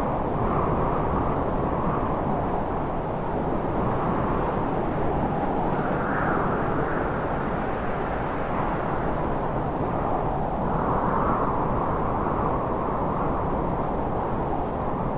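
Wind sound effect: a steady rushing wind that swells in gusts, most clearly about six seconds in and again near eleven seconds.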